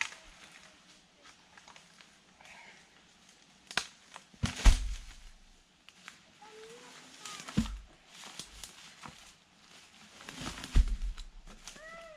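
Three heavy thuds a few seconds apart as sawn sections of a spruce log are dropped onto the ground, with smaller knocks and rustles between.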